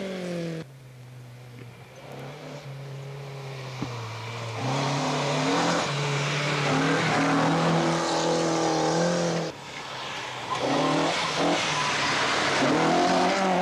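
Rally cars at full throttle on a gravel stage, the engine note stepping up and down with gear changes over a hiss of tyres on loose dirt. The sound cuts off suddenly about half a second in and again near ten seconds, each time followed by another car.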